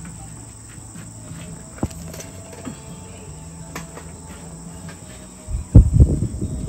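Crickets chirring steadily, with faint scattered clicks of a dog licking and chewing food from a plastic tub. A loud low rumble starts near the end.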